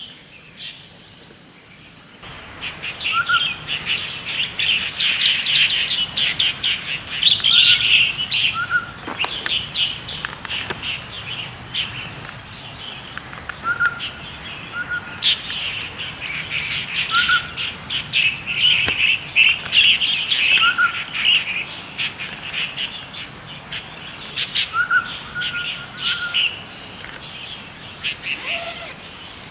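Many small birds chirping and twittering at once, with a short rising whistled note repeated every second or two; the chorus starts abruptly about two seconds in.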